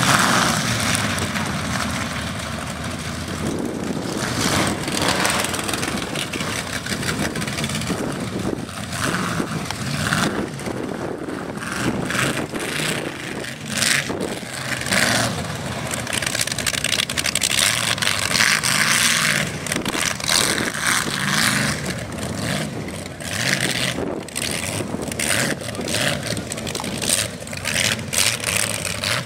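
Engines of lifted, big-tyred mud-bogging trucks running, their sound rising and falling.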